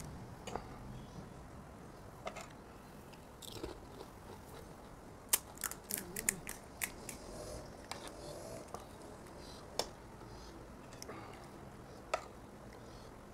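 Chewing and crunching of crisp pani puri shells: scattered sharp crunches, with a quick cluster of them about halfway through.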